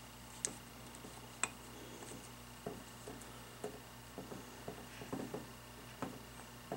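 Small clicks and taps of a screwdriver and parts on a Hydro-Gear hydraulic pump's aluminium housing during reassembly, as the shaft is fitted back through. Two sharp clicks in the first second and a half, then a series of softer, irregular taps and knocks.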